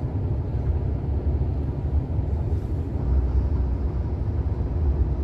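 Steady low rumble of a moving truck's engine and road noise, heard from inside the cab.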